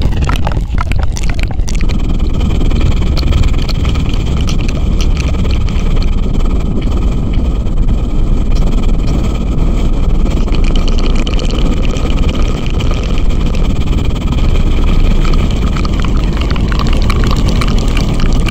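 ASMR 'helicopter' trigger: a loud, fast, steady rumbling flutter worked right on the microphone, imitating a helicopter's rotor, with a few sharp clicks about a second in.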